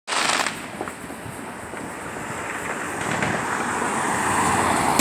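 Consumer fireworks in the neighborhood: a brief crackle at the start, then a few faint scattered pops over a steady rushing background noise that grows louder toward the end.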